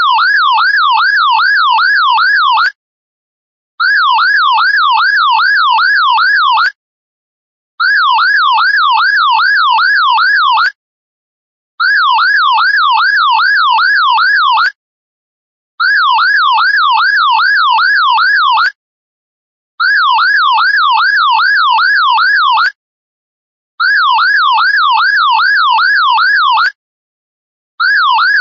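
Classic electronic alarm sounding loudly: a tone that sweeps up quickly about three times a second, in blasts of about three seconds separated by one-second pauses, repeating steadily.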